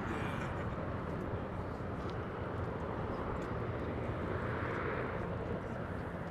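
Joby electric air taxi in flight, its six electric propellers giving a steady, even rushing hum with no engine note.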